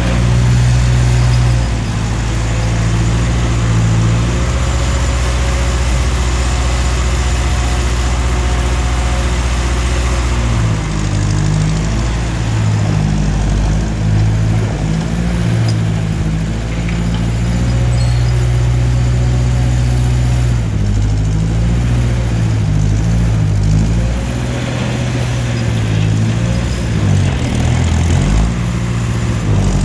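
1955 Ferguson TO35 tractor engine running as the tractor pushes snow with its front blade. The engine note holds steady at first, then rises and falls repeatedly in the second half as the tractor manoeuvres.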